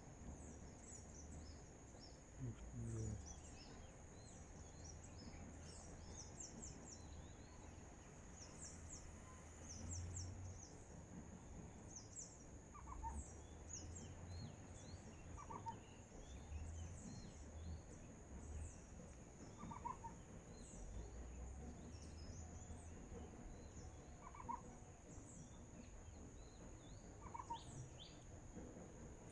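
Faint birdsong: many quick high chirps, and from about halfway through a short lower call repeated every few seconds, over a steady high-pitched whine.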